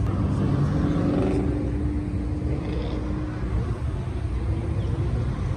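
Road traffic: cars and SUVs driving past at moderate speed, a low rumble of engines and tyres, with one engine's steady drone heard for the first three seconds or so.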